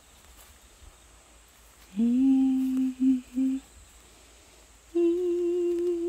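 A person humming two long held notes: a low one about two seconds in, broken off twice near its end, then a slightly higher one with a slight waver near the end.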